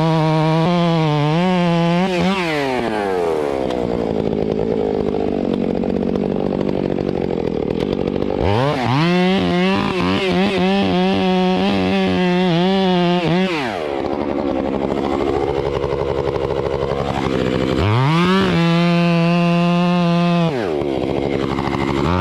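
Stihl MS 661 two-stroke chainsaw with a 36-inch bar running hard, bucking a heavy tulip poplar piece. It holds a high, steady pitch three times, and each time the pitch drops away for several seconds; it rises again near the end.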